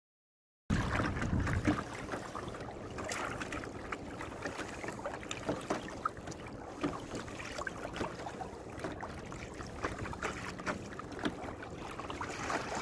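Small splashes and water lapping against a plastic kayak hull, with wind rumbling on the microphone; the sound cuts in abruptly under a second in with a stronger gust of wind rumble for about a second.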